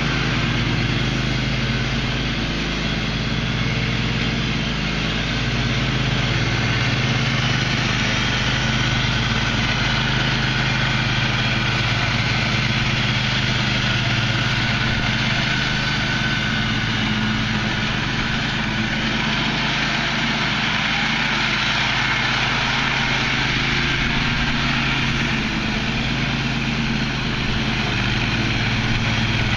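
Engine of a Husky 22 HP riding lawn mower with a 46-inch deck, running steadily at a constant speed.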